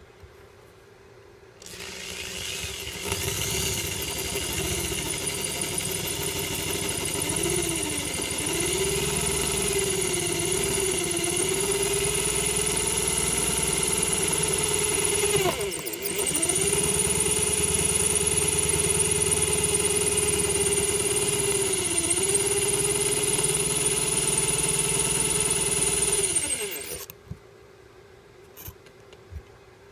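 Electric drill with a small bit drilling out the brass tumblers of a keyed trigger lock. The motor starts about two seconds in and runs steadily, its pitch sagging now and then as the bit bites. It stops briefly about halfway, runs again, and stops near the end.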